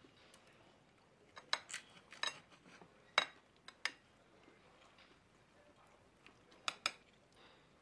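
Knife and fork clinking and tapping against a china plate at a meal. There are a few sharp clinks in small clusters: about a second and a half in, around three to four seconds in, and again near the end.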